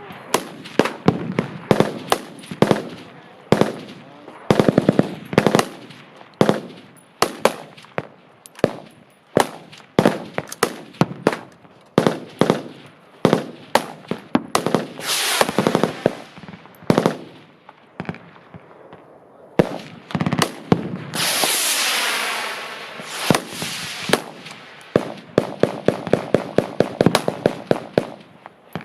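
Several machine guns firing at once: rapid bursts and single shots overlapping, with one long unbroken burst of about two seconds about two-thirds of the way through.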